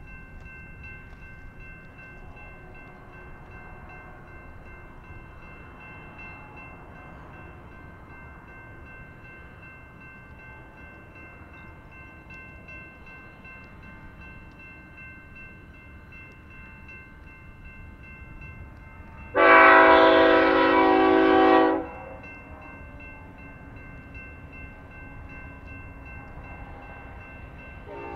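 Diesel freight locomotive air horn sounding one loud blast of about two seconds, several notes at once, about two-thirds of the way through. A steady low rumble of the train runs underneath, and a second horn blast begins at the very end.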